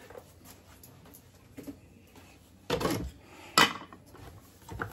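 Kitchen handling sounds: a short scrape about three seconds in, then one sharp click as the small electric chopper's bowl is taken hold of.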